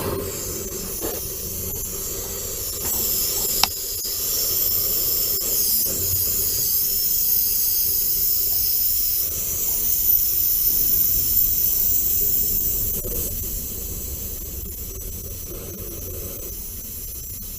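Oxy-fuel cutting torch hissing steadily as it cuts leftover boiler tube stubs out of a locomotive tube sheet, with one sharp click about four seconds in.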